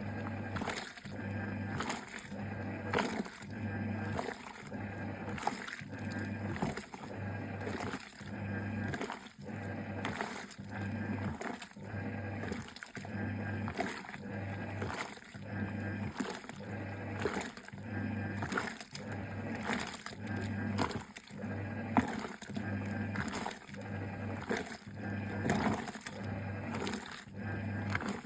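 Giantex EP22761DE mini top-load washer in its wash cycle. The motor hums in short spells of about a second, starting and stopping in a steady rhythm as the pulsator churns the wash water.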